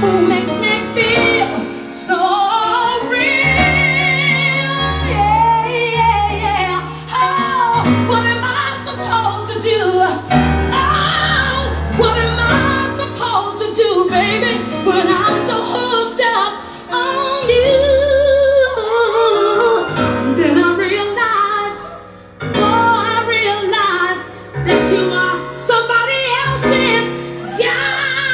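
Disco song with a female lead vocal, sung with strong vibrato over a bass line.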